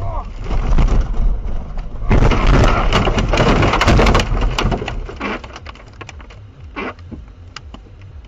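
A car crashing off the road into snow and brush: a dense run of crunching and cracking impacts starting about two seconds in and lasting a couple of seconds, then scattered knocks as it settles.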